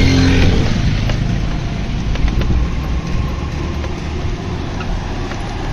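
Steady road and motor rumble of a moving vehicle, heard from on board.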